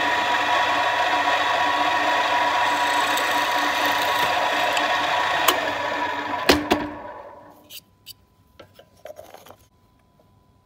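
Bench drill press running steadily and drilling a hole through a small pine block held in a machine vise, with a couple of sharp knocks near the end of the cut. About seven seconds in, the motor is switched off and spins down, followed by a few light clicks as the block is handled in the vise.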